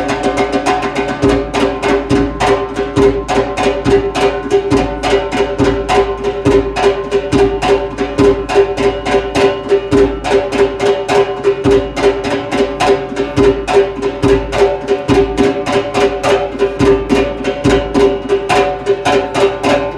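Zurkhaneh drumming: a zarb goblet drum beaten in a fast, even rhythm of about three strokes a second, over a steady low held tone, setting the pace for the club-swinging exercise.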